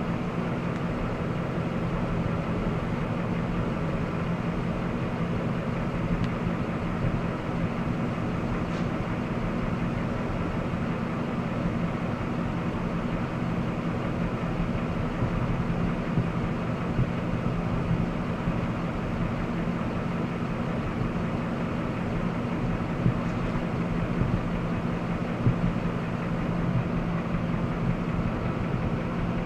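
Jasper remanufactured 5.3-litre V8 engine running steadily, with an unexplained noise that its owner cannot identify.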